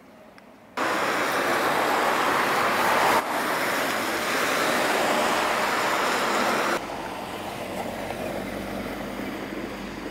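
Street traffic noise: the hiss of car tyres on a wet, slushy road. It starts abruptly about a second in, breaks off briefly near three seconds, and drops to a quieter level near seven seconds, in hard jumps.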